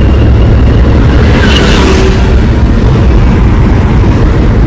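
Steady, loud road and engine rumble of a Suzuki car at highway speed, heard from inside the cabin, with a brief swell of hiss about a second and a half in.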